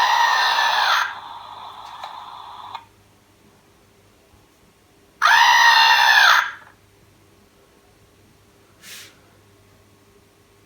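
Red plush monster toy's electronic voice sound played twice through its small speaker: a high, scream-like cry, each about a second long and rising then falling in pitch, the first about the start and the second about five seconds in. A faint short hiss follows near the end.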